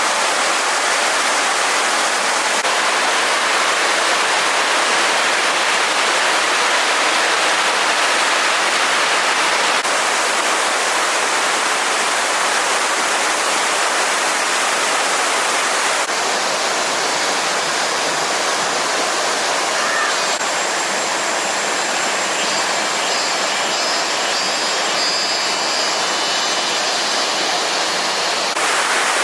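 Steady hiss of rushing water, its texture changing suddenly several times along the way.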